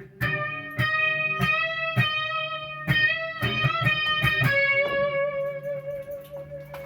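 Electric guitar played through a Marshall MG100 amp head on its crunch channel, with light overdrive: a hard-rock chord riff struck every half-second or so, then a long held note with slight vibrato.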